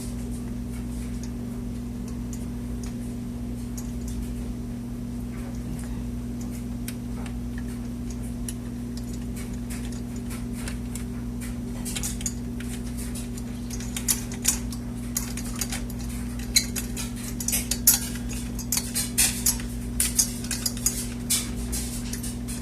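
Metal clicking and clinking as a CPU heatsink is set in place and aligned on the processor and its mounting screws are started. The sharp taps come thickest in the second half, over a steady low hum.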